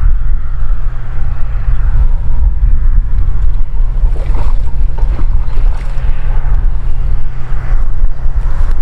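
Wind buffeting the microphone, a loud steady low rumble.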